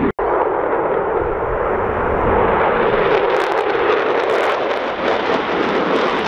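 Jet engines of a formation of F-16 fighter jets flying past: a steady, loud roar, broken by a brief cut to silence just after the start.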